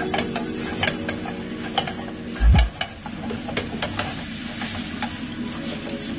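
Meatballs sizzling and crackling in a hot stainless steel frying pan, with a heavy thump about two and a half seconds in. From about four seconds in, water is poured into the hot pan and hisses.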